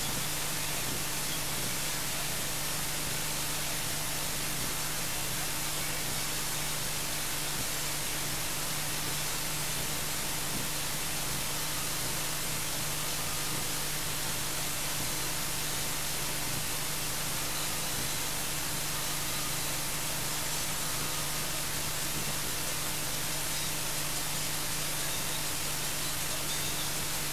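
Steady, even hiss of static with a constant low electrical hum underneath, unchanging throughout; no other sound stands out.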